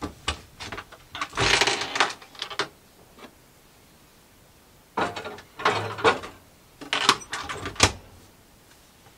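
Caravan overhead wall locker opened with a click, glasses rattling as they are handled and stowed, then the locker door pushed shut with a sharp latch click near the end.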